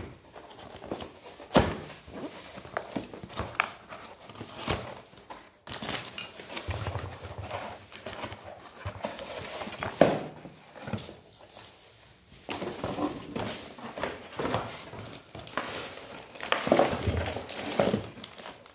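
Stainless steel kitchen press being handled: irregular metal clinks and knocks, two of them sharper and louder, with some rustling between.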